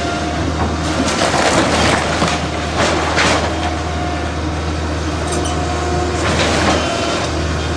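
Hydraulic excavator's diesel engine running under load with a steady low drone while its bucket tears into the house's wooden and brick walls: crunching and cracking of splintering boards and falling debris come in several surges, about a second in, near three seconds and again past six seconds.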